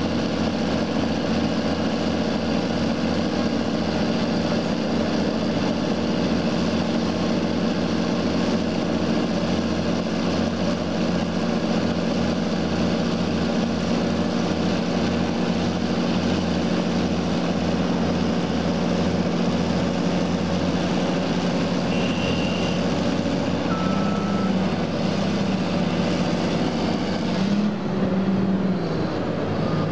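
Heavy diesel engines of a Caterpillar crawler bulldozer and a tracked excavator running steadily under load while the dozer is stuck in mud. Two brief high beeps sound a little past the middle, and the engine note shifts up and down near the end.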